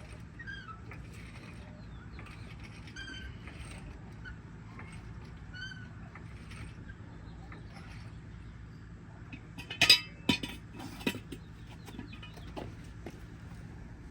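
A steady low hum with a few short, arched bird calls in the first six seconds, then a brief clatter of sharp knocks about ten seconds in.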